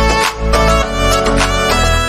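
Background music with a strong bass beat and sustained melodic notes.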